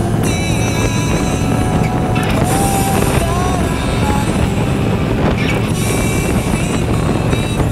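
Harley-Davidson Street Glide's V-twin engine running steadily at highway cruising speed, with wind rushing over the microphone.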